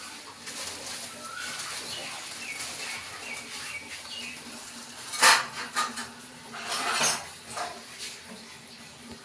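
Thin plastic bag crinkling and rustling as a kitten plays in it, in two bursts about five and seven seconds in. The first burst is the loudest. Faint short high chirps come earlier.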